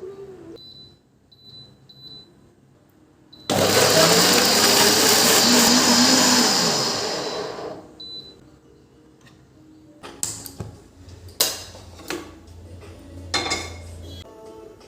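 Electric kitchen mixer grinder running: it starts abruptly about three and a half seconds in, its motor pitch rising as it spins up, runs for about four seconds, then winds down. A few sharp knocks follow near the end.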